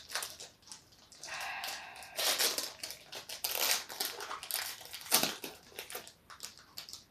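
Foil wrapper of a Pokémon booster pack crinkling and crackling as it is pried and torn open, with a rougher rip about a second in. The pack is stubborn to get into.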